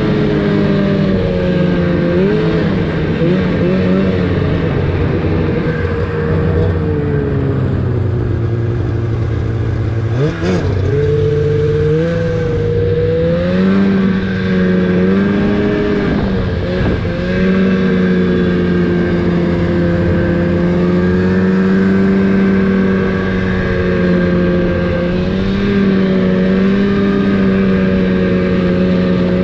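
Snowmobile engine running under throttle on the trail, its pitch holding fairly steady with small rises and falls. About ten seconds in the throttle briefly drops off and the engine quickly revs back up.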